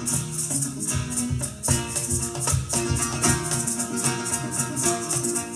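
Latin music with a steady rhythmic shaker and plucked strings over bass, playing through a pair of Dayton Audio B652 bookshelf speakers and picked up in the room by a phone's microphone.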